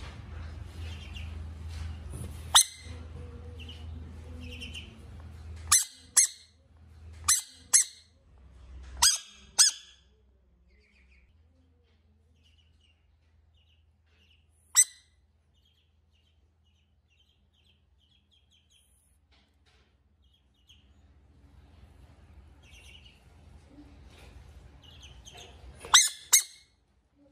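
Bullfrog giving loud, very short squeaky calls, mostly in pairs, as a finger prods it. Several calls come in the first ten seconds, one comes in the middle and the loudest pair comes near the end, as the yellow frog gapes. Faint peeping from ducklings runs in between.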